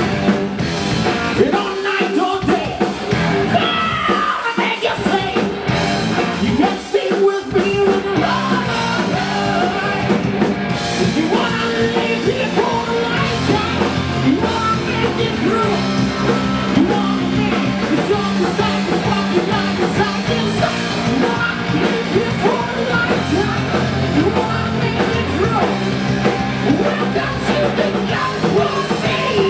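Rock band playing live: drum kit and guitars, with a male singer singing into a microphone over them.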